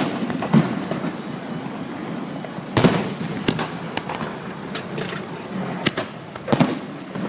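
Fireworks exploding: sharp bangs at irregular intervals, about eight of them, the loudest about three seconds in and again near the end, over a steady background rumble.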